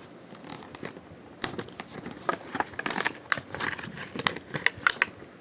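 Plastic blister pack on a cardboard backing card of a die-cast toy car being crinkled and torn open by hand: a dense, irregular run of crackles and snaps starting about a second and a half in.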